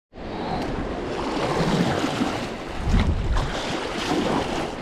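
Wind buffeting the microphone in gusts over the wash and slosh of choppy sea water around a sea kayak, with waves surging against a rocky shoreline.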